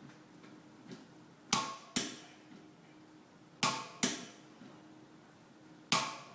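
Clicker torque wrench set to 40 N·m tightening a Shimano cassette lock ring: three pairs of sharp metallic clicks about two seconds apart.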